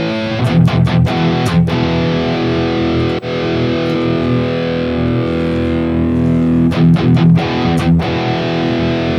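Electric guitar played through a Tube Screamer-style overdrive into a distorted amp tone. Short, choppy chords open and close the riff, with a long ringing chord held in the middle.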